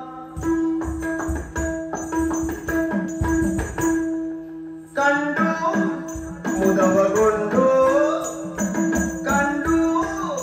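Yakshagana ensemble playing: maddale drum strokes and the bhagavata's small hand cymbals over a steady shruti drone. The bhagavata's singing comes back in about halfway.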